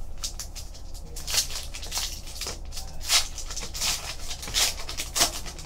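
Foil wrapper of a Fleer Retro basketball card pack being torn open and crinkled by hand: a run of irregular crinkles and crackles that grows louder after the first second.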